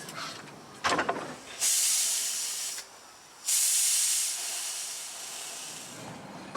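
Miniature steam locomotive letting off steam: a short sharp sound about a second in, then two loud hisses with a brief gap between them, the second fading away over a couple of seconds.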